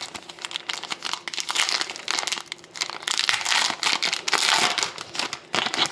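Foil wrapper of a 2011-12 Panini Rookie Anthology hockey card pack being torn open and crinkled by hand: a run of crackling and crinkling in several louder bursts.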